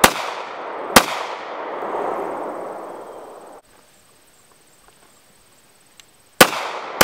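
Glock 43 9mm pistol firing: two shots about a second apart, then after a quiet gap another shot near the end, each followed by a long echo that dies away over a couple of seconds.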